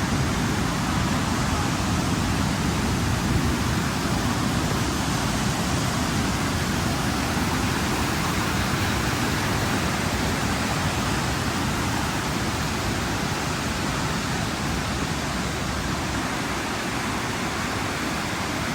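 Steady rush of a waterfall's falling water, an even noise with no breaks, easing off slightly toward the end.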